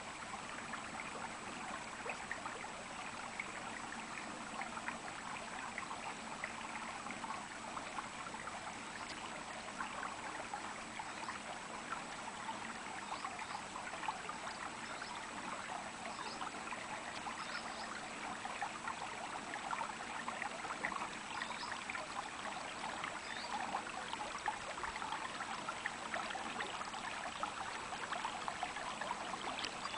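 Small stream babbling and trickling steadily over stones, a continuous patter of water.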